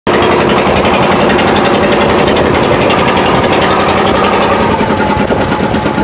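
Boat motor running steadily, heard loud and close from aboard the boat, with a rapid, even chatter.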